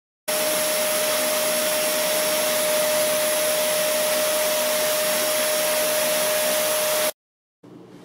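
Vacuum cleaner running steadily through its hose and tip, sucking lint off a heat pump's mesh air filter, with an even rushing noise and a steady whine. It cuts in abruptly and cuts off sharply about a second before the end.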